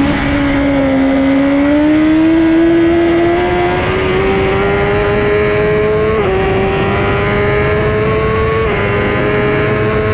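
Honda CBR1000RR-R Fireblade's inline-four engine accelerating hard out of a corner in third gear, its pitch climbing steadily. There are two quick upshifts, about six and eight and a half seconds in, each a brief drop in pitch before the engine climbs again.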